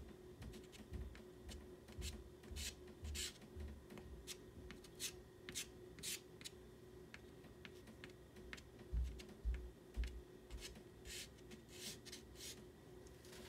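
Soft pastel stick scratching and rubbing across paper in short, irregular strokes. A few dull knocks, the loudest sounds, come about two-thirds of the way through, over a faint steady hum.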